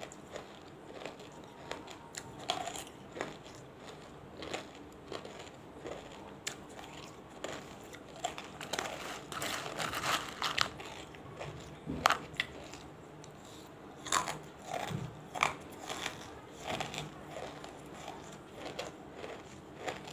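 Banslochan (tabasheer, bamboo silica), soft soaked small pieces mixed with big dry ones, being bitten and chewed: irregular crisp crunches, busiest about nine to eleven seconds in.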